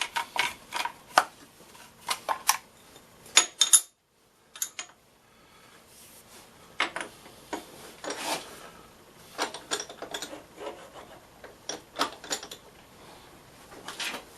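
Irregular light clinks, knocks and scraping of metal tools and a steel workpiece being handled and set up in a vise, with no machine running. The sounds break off for a moment about four seconds in.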